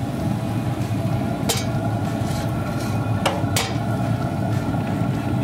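Metal spatula clicking against hot grill grates as it slides under and lifts a steak, three sharp clicks over a steady low hum.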